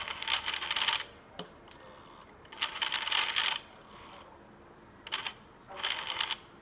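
DJI Zenmuse H3-3D gimbal making a grinding noise in four bursts of up to a second each, with quiet gaps between. It is a fault: the gimbal keeps doing this after power-up.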